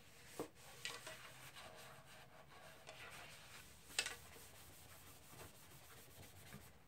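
An acetone-dampened paper towel rubbing faintly over the sanded wooden body of a mandolin, with a few light knocks, the sharpest about four seconds in.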